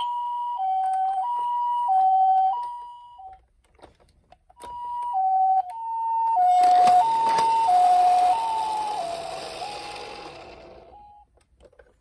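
Toy ambulance's electronic two-tone hi-lo siren, switching between a high and a low note about every two-thirds of a second. It stops for about a second, starts again, and from about halfway a hissing rush joins it while the notes slide lower, until it cuts off shortly before the end.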